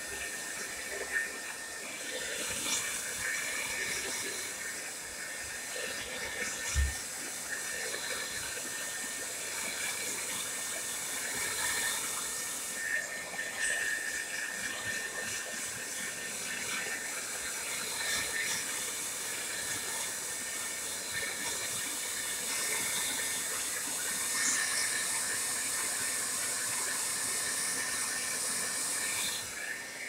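TRESemmé Salon Smooth Professional hair dryer running steadily: a constant rushing hiss of air with a thin steady whine, swelling and easing a little as it is moved around the head. A brief thump about seven seconds in.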